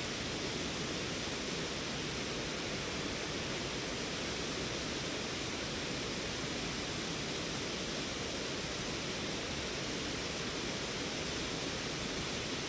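Small creek waterfall pouring steadily: an even, unbroken rushing of falling water.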